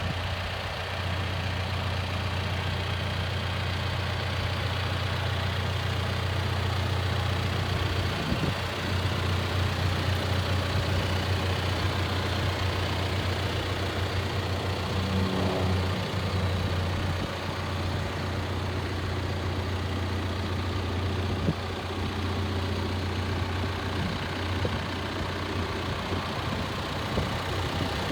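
John Deere 310K backhoe loader's four-cylinder diesel engine running steadily at idle, with a brief change in tone about halfway through.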